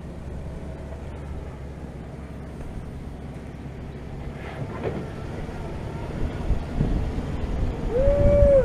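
Toyota Land Cruiser 80-series engine crawling slowly over rock at low revs, a low rumble that grows louder as the truck comes close past, with wind on the microphone. Near the end a voice calls out one long held note.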